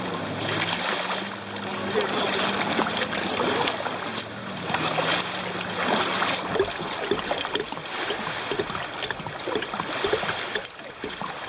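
Kayak paddle strokes, the blades dipping and splashing in lake water in a repeated rhythm. A steady low engine hum from a distant motorboat stops about four seconds in.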